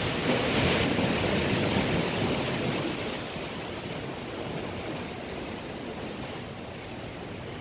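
Gusty wind rushing over the microphone, with a stronger gust for the first three seconds that then eases to a steady rush.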